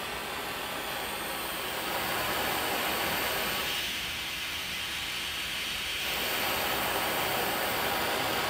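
Dremel Versa Flame 2200 butane hand torch burning with a fine pencil flame, giving a steady hiss that grows louder about two seconds in and again about six seconds in.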